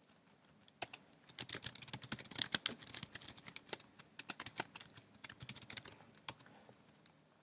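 Computer keyboard typing: a quick, uneven run of light keystrokes that starts about a second in and stops shortly before the end, as a line of code is typed.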